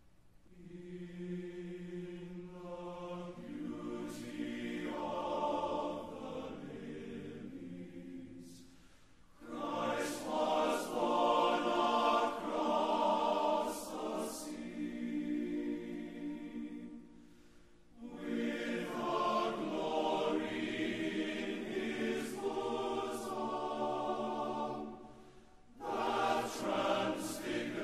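Choral music: slow, sustained chords sung in long phrases, with brief pauses between phrases about every eight seconds.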